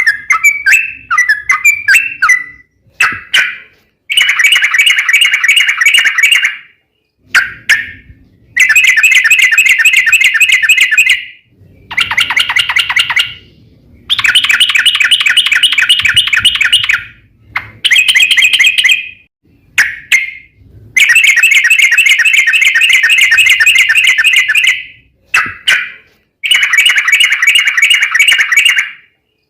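Yellow-vented bulbul (trucukan) singing its long rolling song, loud and in repeated bursts of rapid chattering notes. Some phrases are under a second and others run three or four seconds, with short pauses between them.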